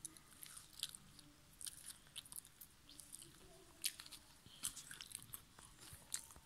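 Lay's potato chips crunching: a quick, irregular run of soft, sharp crackles as the crisp chips break apart.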